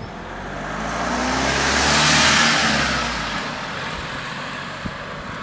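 Panel van driving past close by, its tyre noise and engine rising to a peak about two seconds in and then fading as it moves away over the crossing.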